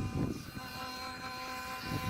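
Steady multi-tone electric whine from a Yuneec Typhoon H Plus drone and its C23 gimbal camera, the camera being faulty, noisy and shaking. A low rumble fades out at the start, and a brief low thump comes near the end.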